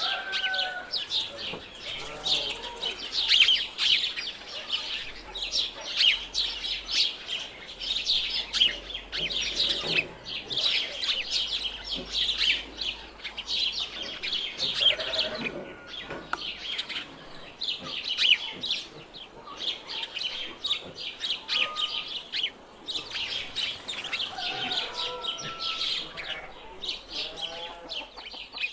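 Many small birds chirping and twittering in a dense, continuous chorus, with a few lower-pitched animal calls now and then, fitting hens clucking.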